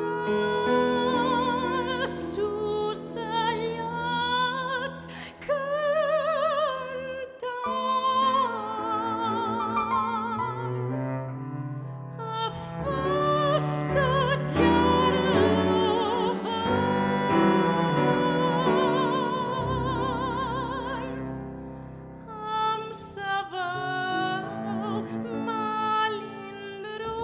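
Soprano singing a slow Catalan folk melody with wide vibrato, accompanied by a bowed cello holding low sustained notes. The voice pauses briefly twice, about seven seconds in and again a few seconds before the end.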